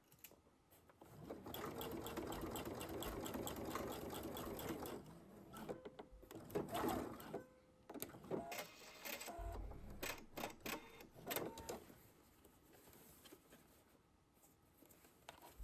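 Sewing machine with a zipper foot stitching a zipper onto denim: a steady run of rapid stitches for about four seconds, then several short stop-start bursts with clicks.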